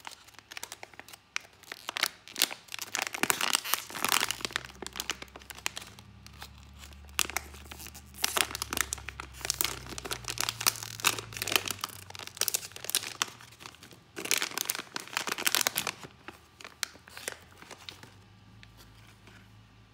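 Crinkly plastic blind-bag packaging being handled and torn open, crackling in uneven bursts, with a few sharper tearing and rustling peaks.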